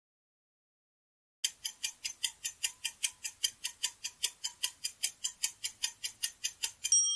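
Countdown-timer sound effect: clock-like ticking at about five ticks a second, starting about a second and a half in. It ends near the end in a short ringing chime as the countdown reaches zero.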